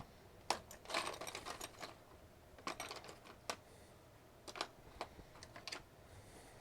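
Scattered light clicks and taps, about a dozen at an uneven pace, from small tools and parts being handled on a work desk during a laptop backlight cable repair.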